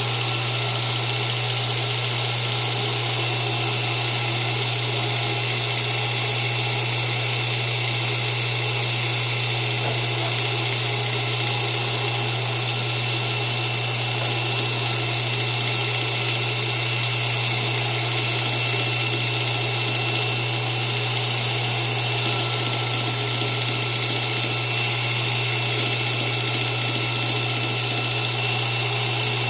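A surface grinder converted to a 2x72 belt, its motor and abrasive belt running steadily with a constant hum and a high whine while the belt grinds the mill finish off a steel laminate.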